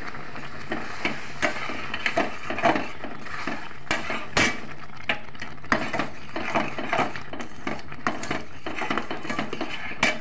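A steel spoon stirs and scrapes a thickening semolina mixture in a stainless steel kadai. It makes irregular clinks and scrapes against the pan, about two or three a second, over a steady hiss.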